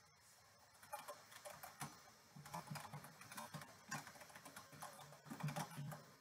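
Faint typing on a computer keyboard: a quick, uneven run of keystrokes starting about a second in, as a file name is typed.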